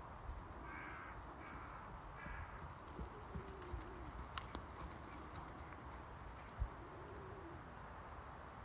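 A crow caws three times in the first few seconds. Faint hoofbeats of a horse trotting on the arena surface run underneath and stop as the horse halts.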